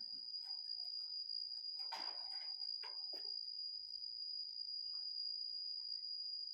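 Forest ambience dominated by a steady high-pitched insect drone. A few short, faint calls or rustles come about two and three seconds in.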